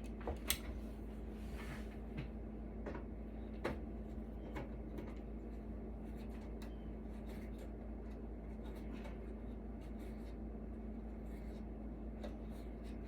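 Scattered light clicks and taps of a hand tool on metal as brass hex nuts are worked off the front of an audio unit's chassis, over a steady low hum.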